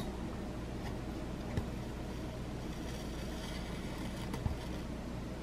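Faint sounds of hand stitching over a steady low hum: a soft rasp of metallic thread drawn through the cross-stitch canvas about three seconds in, and a couple of light ticks.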